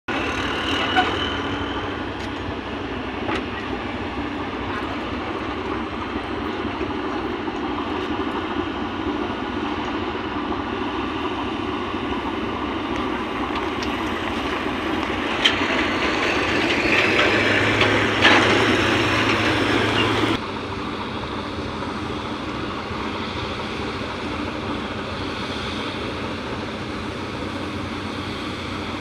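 Steady rumbling drone of a tugboat's and a large ship's engines with water noise. It grows louder for a few seconds before dropping sharply about twenty seconds in.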